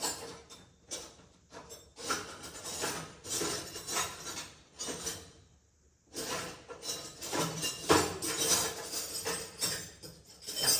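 Metal parts and tools clinking and clattering as they are handled, in irregular bursts with a short pause a little past halfway.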